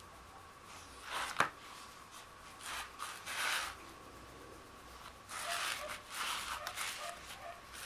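Rustling and handling noises in short bursts, with one sharp click about a second and a half in.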